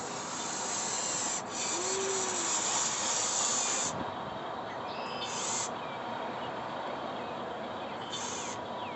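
Radio-controlled excavator at work digging a trench: a scraping, hissing noise. The brighter part swells through the first few seconds, cuts off, and comes back twice in short bursts.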